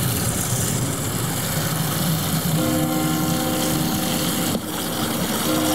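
Water from an outdoor wall tap pouring steadily into a plastic water canister through its filler opening. About two and a half seconds in, held musical tones come in over the rushing water.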